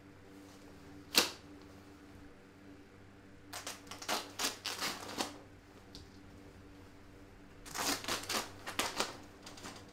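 Things being handled on a kitchen counter: one sharp knock about a second in, then two spells of quick clicking and rustling.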